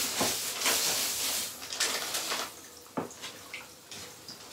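Plastic bags and a foil insulated box liner rustling and crinkling as hands dig through a fish shipping box and pull out a bagged fish in water, then a few light knocks.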